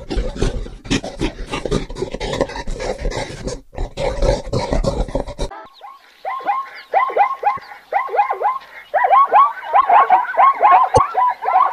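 Two animal recordings back to back. The first is a noisy stretch of knocks and scuffling; about halfway it cuts to a rapid string of short, high animal calls, each falling in pitch, several a second.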